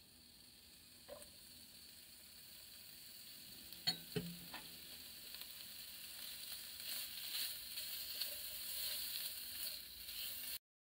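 Sliced pork and shimeji mushrooms sizzling in a nonstick frying pan as they are stir-fried with a spatula, the sizzle growing steadily louder. A few sharp knocks sound around four seconds in, and the sound cuts off abruptly just before the end.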